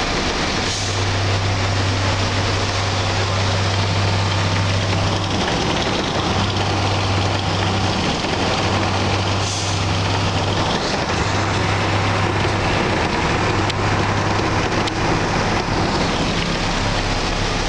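Steady engine hum and road noise inside a moving vehicle's cabin, with the low hum dropping out briefly a few times and a few short passing whooshes.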